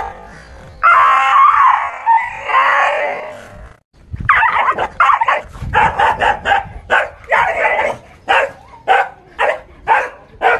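A dog giving drawn-out, wavering cries, then from about four seconds in barking rapidly, two or three barks a second, in alarm at a fake tiger.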